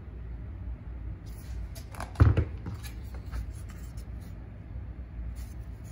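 Handling noise from a plastic tub of vinyl spackling and a metal putty knife: a loud knock about two seconds in, with light clicks and scrapes around it.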